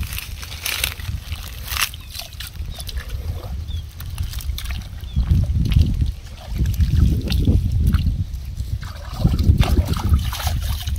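Hands sloshing and splashing in shallow muddy pond water among weeds, with scattered small splashes and a few louder swells of low rumbling.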